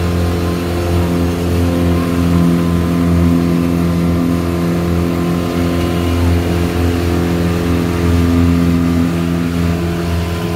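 Outboard motor of a Sun Tracker pontoon boat running steadily under way, a constant engine hum with the hiss of the moving boat.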